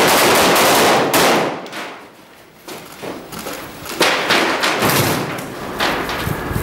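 Rifle gunfire inside a cinder-block building: a loud dense run of shots that stops about a second and a half in, then scattered single shots and knocks.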